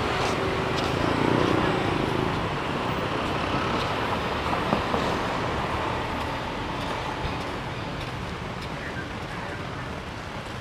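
Road traffic passing on a street: a steady wash of vehicle noise that swells about a second in and slowly fades toward the end.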